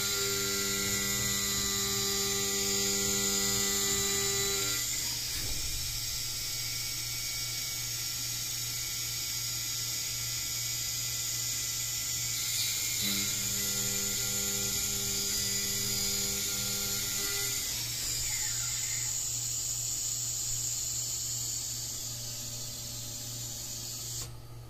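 Small CNC machine running with a steady hum and a high whine. A pitched stepper-motor tone sounds during two axis moves, one of about five seconds at the start and another of about four seconds just past the middle. The machine stops shortly before the end.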